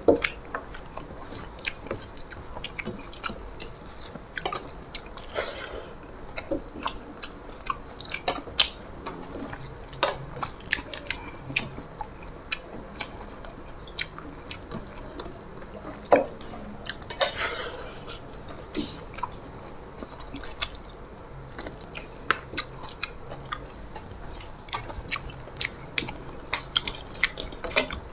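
Close eating sounds from two people eating rice and curry by hand: chewing, with many short clicks and smacks scattered throughout, and fingers working rice on steel plates.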